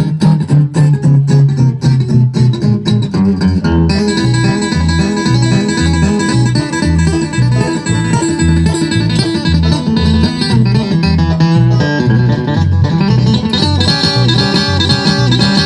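Live bluegrass band playing an instrumental break, with banjo and guitar picking over a steady pulse of bass notes. The texture is sparse at first, and the fuller band comes in about four seconds in.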